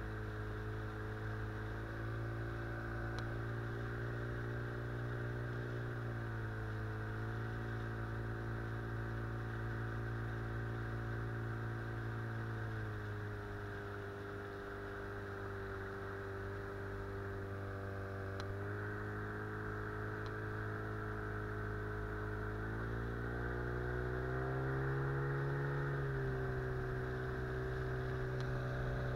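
Small outboard motor pushing an inflatable boat upriver, running steadily, its pitch dipping and rising several times as the throttle changes. The motor is still being run in.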